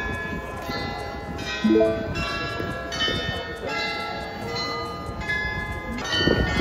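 Munich New Town Hall glockenspiel playing a tune on its tower bells: a new bell note struck about every half second, each one ringing on over the others.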